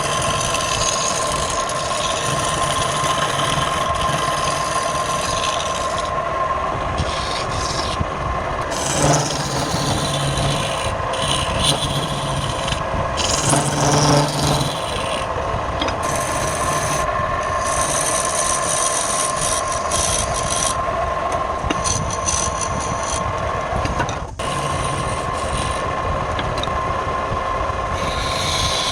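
Wood lathe running with a tool scraping the spinning wood: a continuous scraping noise over a steady motor hum, swelling briefly twice in the middle.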